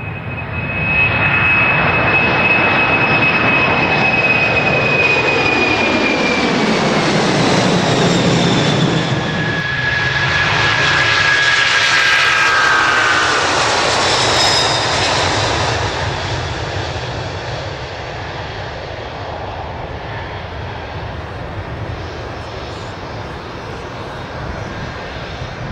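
Boeing 747-400's four Rolls-Royce RB211 turbofans at take-off power as the jet rolls down the runway, passes and climbs away. A loud jet roar comes up about a second in, carrying a high fan whine that slides down in pitch as the aircraft goes by. The roar then eases to a steadier, quieter rumble as it climbs out.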